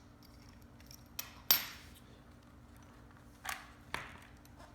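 Small metal parts and tools clinking and tapping as they are handled and set down: four separate knocks, the loudest a sharp clink about a second and a half in that rings briefly.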